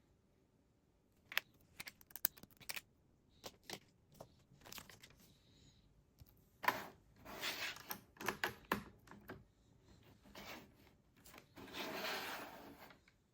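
Plastic Lego pieces being handled: a few sharp clicks as bricks are snapped together, then two longer spells of rattling as loose pieces are stirred and picked through.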